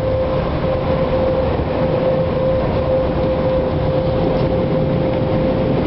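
Car wash dryer blowers running steadily, heard from inside the truck cab: a loud, even rush of air with a constant whine.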